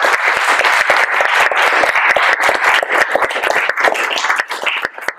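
Audience applauding: many hands clapping densely, thinning out and dying away near the end.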